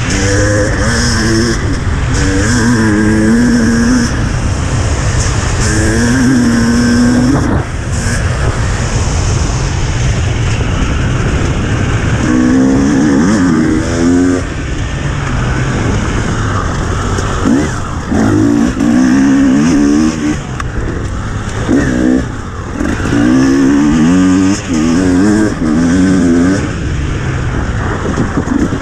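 Dirt bike engine running at high speed, revving up and down repeatedly as it shifts and the throttle is rolled off and on, with a few brief drops where the throttle is closed.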